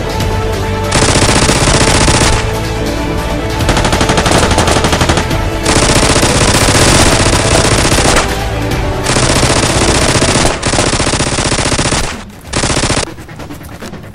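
Bursts of automatic-gunfire sound effect, rapid shots in runs of one to two and a half seconds, about six runs with short gaps, over background music.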